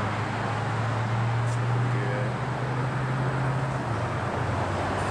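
Steady low motor hum with some mechanical noise, its pitch dropping slightly about four seconds in.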